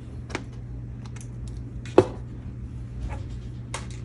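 Laminating machine running with a low steady hum while a laminating pouch is fed and handled, with a few light clicks and taps and one sharper tap about two seconds in.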